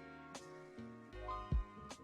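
Lo-fi hip hop background music: mellow sustained chords over a slow beat with a deep kick drum and sharp snare hits.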